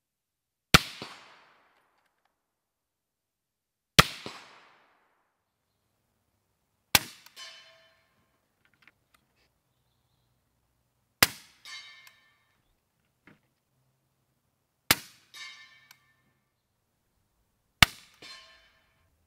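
Six suppressed rifle shots, a few seconds apart. After most of them the ring of a hit steel target comes back about half a second later.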